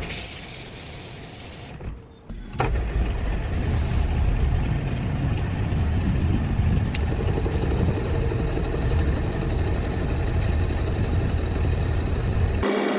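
A machine motor running steadily with a low rumble, starting abruptly about two and a half seconds in after a brief quieter stretch.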